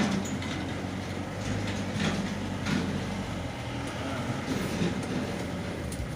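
A 2004 Mahindra Bolero running, heard as a steady low rumble with faint clicks and rattles.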